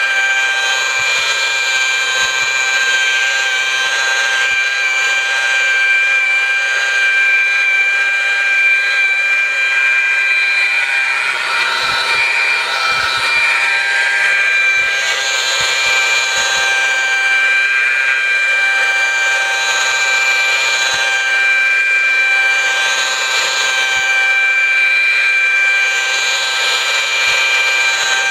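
Makita 9237 rotary polisher running steadily at about 900 RPM, buffing compound into oxidized, faded plastic: a steady motor whine with a scrubbing hiss that swells and eases several times as the pad moves over the surface.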